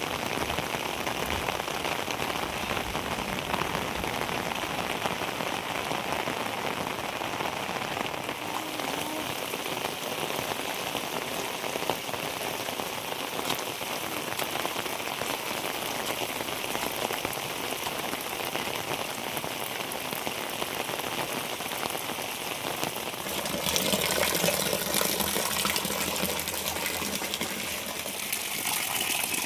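Heavy rain falling steadily, a dense even hiss. About three-quarters of the way through it turns brighter and a little louder, with a rush of water.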